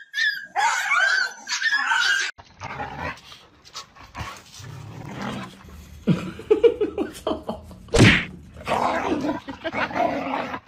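High yelping cries for about two seconds, then dogs barking and growling, with one sharp knock about eight seconds in.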